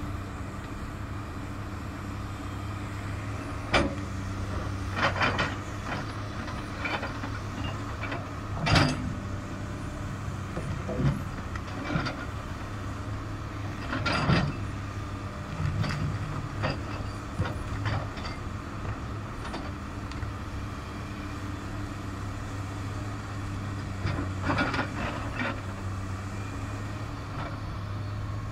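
Komatsu PC300 excavator's diesel engine running steadily under load while its bucket crushes quartzite blocks. Sharp cracks and knocks of breaking stone and bucket striking rock come at irregular intervals, a dozen or so, with a cluster near the end.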